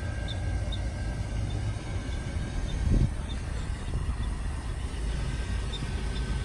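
Engine of a parked 2003 Chevrolet cutaway shuttle bus idling, a steady low rumble, with a thump about three seconds in.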